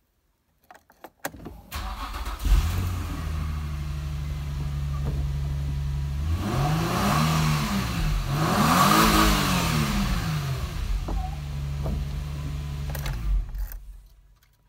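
Infiniti G35's V6 engine starting after a few clicks, then idling steadily. It is revved twice, to about 4,000 rpm, the pitch rising and falling each time, and then settles back to idle.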